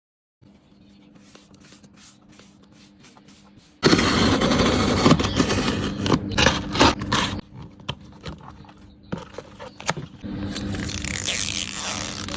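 Packaging of a makeup setting spray being handled and opened close to the microphone: scraping and rustling with sharp ticks, loud from about four seconds in, easing off, then rising again near the end.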